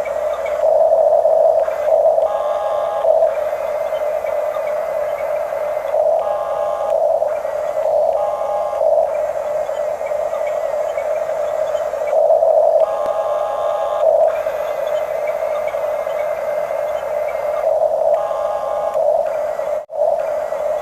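Electric motors of a Huina radio-controlled construction model whining steadily, with extra higher-pitched whines cutting in for about a second at a time as further functions are driven; the sound drops out briefly near the end.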